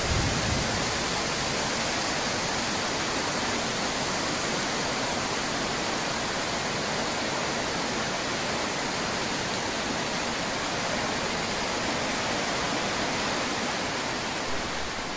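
Torrential storm rain pouring down, a steady even rush of noise.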